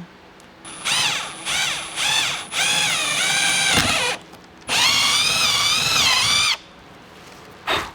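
Power drill boring the first mounting hole through a carbon fiber side skirt. The motor whines in three short trigger bursts, then two longer runs with a brief pause between them, its pitch wavering under load, and a last short blip near the end.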